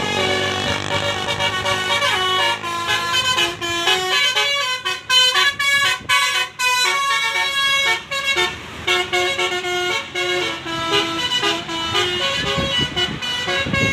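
Tour bus's multi-tone Basuri 'telolet' horn playing a quick melody of short notes that jump between pitches. Vehicle noise grows near the end.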